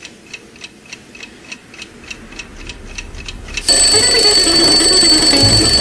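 Red twin-bell mechanical alarm clock ticking about three times a second, the ticks growing louder, then ringing loudly from a little before four seconds in.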